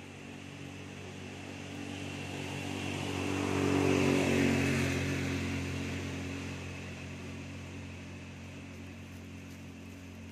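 A motor vehicle driving past: its engine grows louder to a peak about four seconds in, then fades away.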